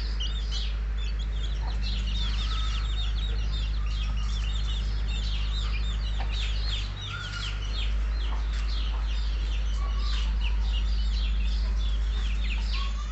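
Chickens: chicks peeping rapidly and continuously, with a few lower calls from the hens, over a steady low hum.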